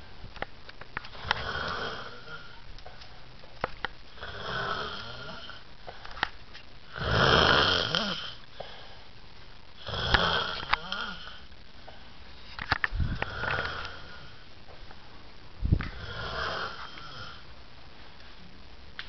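A person snoring in their sleep: about six snores roughly three seconds apart, each a rasping swell, the loudest a little over a third of the way in.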